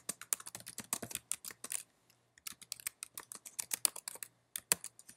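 Typing on a computer keyboard: quick runs of keystrokes with a short pause about two seconds in and a couple of harder key strikes near the end.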